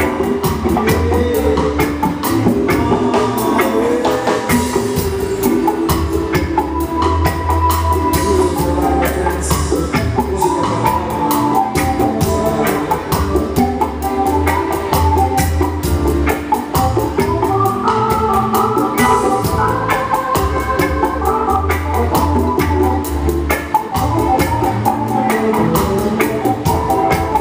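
Live band playing an instrumental passage: electric guitars, bass, drum kit, hand drum and keyboard with an organ sound, over a steady, fast drum beat.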